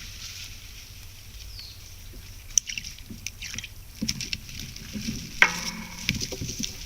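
Forest sounds: an animal rustling and scratching about, with scattered sharp clicks, and a short pitched call about five and a half seconds in, over a steady high hiss.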